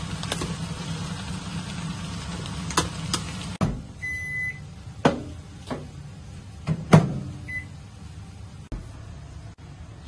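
Microwave oven in use: a steady low hum stops with a click about three and a half seconds in, then a long electronic beep. Several sharp clicks and knocks of the door being opened and shut follow, with one short beep near the end.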